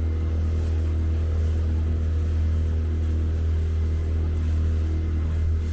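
Small boat's engine running steadily while underway, a constant low drone with an unchanging pitch.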